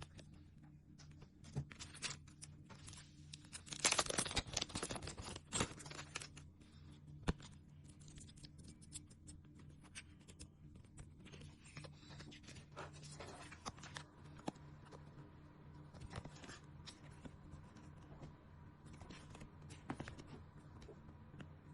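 Paper and plastic being handled: rustling, crinkling and small clicks, with a burst of crinkling about four to six seconds in. A low steady hum runs underneath.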